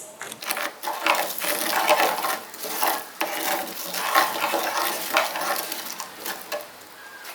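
A spoon stirring a hot pot of onion and turmeric syrup, making irregular scrapes and knocks against the pot over a steady hiss. The stirring thins out near the end.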